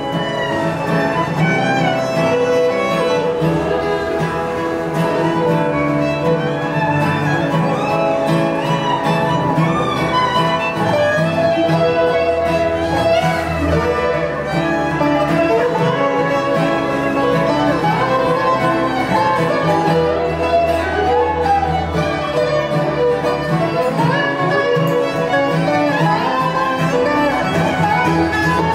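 Bluegrass band playing an instrumental passage, the fiddle carrying the melody over five-string banjo, acoustic guitar and mandolin.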